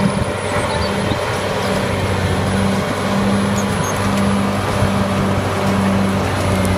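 Large crawler bulldozer's diesel engine running under load as the blade pushes earth and rubble. It is a steady, loud drone with a low hum underneath, and a tone in it comes and goes about once a second.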